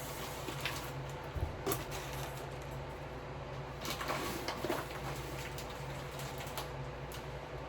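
A few soft knocks and rustles of kitchen handling over a steady low hum.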